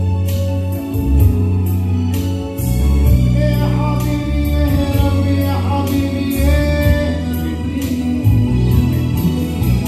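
Evangelical hymn sung in Tunisian Arabic by a man through a microphone, over a backing of sustained low instrumental notes and a steady beat.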